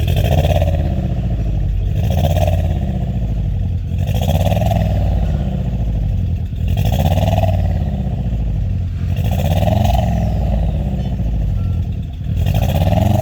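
Volkswagen Golf 7 1.4 four-cylinder petrol engine being revved gently, about six times, each rev rising and falling. The engine is misfiring on cylinder 3, which the mechanic suspects is caused by a leaking fuel injector.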